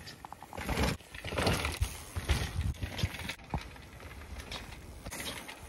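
Mountain bike riding down a loose dirt trail: tyres crunching over loam and dead leaves, with knocks and rattles from the bike over the bumps, busiest in the first half.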